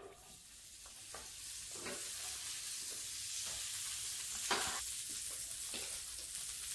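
Butter sizzling on the hot plates of an open electric sandwich maker: a steady hiss that builds over the first couple of seconds, with a few light clicks of a steel spoon.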